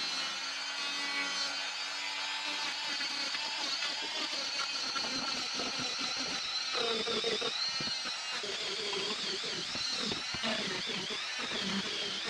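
Handheld rotary tool running at high speed with a steady high whine. Its pitch wavers and dips several times as the bit meets load.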